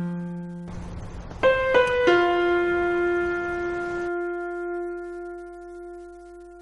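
Slow background music on piano: three notes struck in quick succession about a second and a half in, the last one held and slowly fading.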